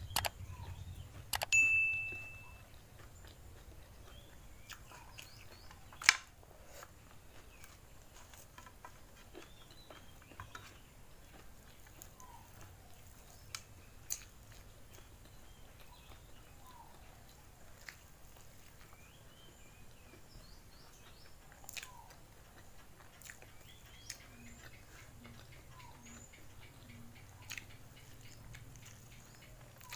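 Close-miked eating: quiet chewing and mouth sounds of someone eating nasi lemak by hand, with a few sharp clicks, the loudest about six seconds in. A short high ringing ping sounds about a second and a half in. Faint bird chirps come and go behind.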